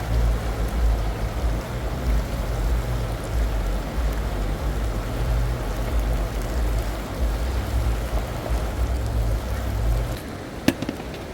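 Rushing river water with wind buffeting the microphone as a heavy low rumble, which drops away about ten seconds in, followed by a single sharp click.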